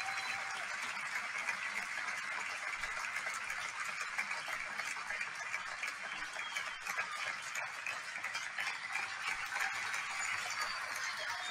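Steady hissing, crackly background noise with fine ticks through it. There is no speech and no music.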